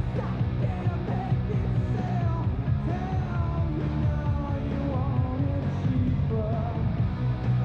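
Rock and roll music with a singing voice.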